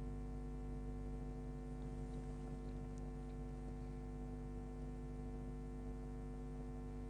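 Steady electrical hum and buzz made of many fixed tones, unchanging throughout, with a faint click about three seconds in.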